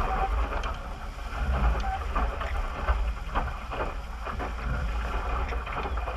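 Strong wind buffeting the microphone with a low rumble, over water splashing and slapping irregularly against the hull of a small sailboat under way.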